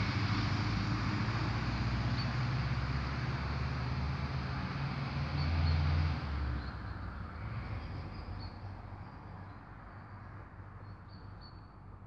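A motor vehicle engine running with a low hum, swelling slightly around six seconds in and then cutting out, leaving quieter outdoor background with a few faint high chirps.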